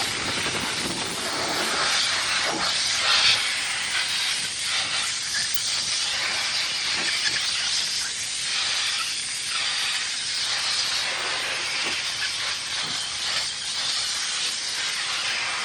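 Compressed CO2 jetting through the condenser coil of a self-contained refrigeration unit: a steady hiss of gas, wavering a little, blowing the dust and dirt out of the coil fins.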